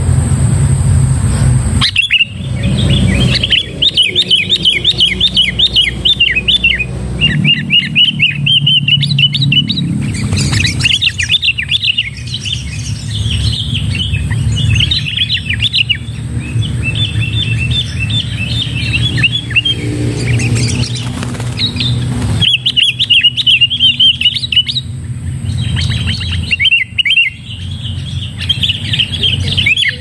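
Sooty-headed bulbuls calling: runs of quick, chattering chirps a few seconds long, broken by short pauses, over a steady low rumble.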